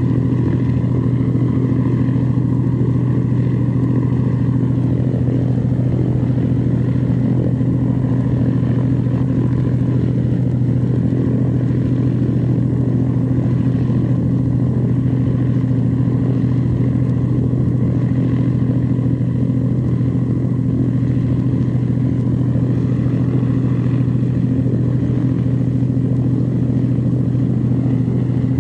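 Small aircraft's engine droning steadily in flight at an even pitch, heard from inside the cockpit.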